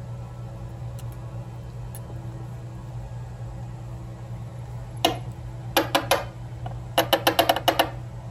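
Small metal lock parts clicking and clinking as an American 1100 padlock is taken apart: a single sharp click about five seconds in, three more a moment later, then a quick run of about eight near the end, over a steady low hum.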